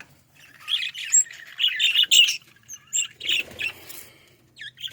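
A flock of budgerigars chirping and chattering: rapid short, high calls overlapping one another, busiest in the first couple of seconds and sparser towards the end.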